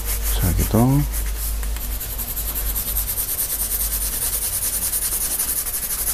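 Graphite pencil hatching on drawing paper: quick, even back-and-forth strokes making a steady scratchy hiss that picks up about a second and a half in.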